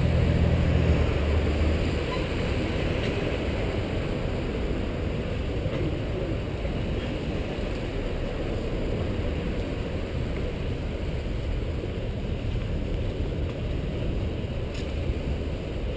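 Wind rush on a bicycle-mounted camera's microphone mixed with the hum of car traffic alongside. A nearby car engine's low drone is loudest in the first couple of seconds, then settles into the steady noise.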